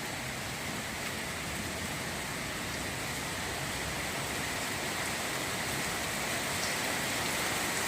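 Steady rain falling, an even hiss that gradually grows a little louder.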